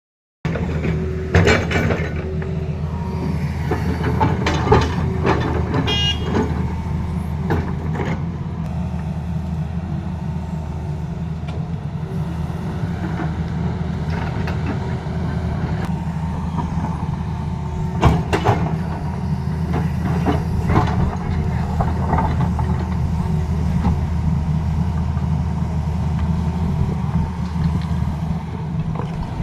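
Tata Hitachi excavator's diesel engine running steadily at working revs, with scattered knocks and clanks, the sharpest about 1.5, 5 and 18 seconds in.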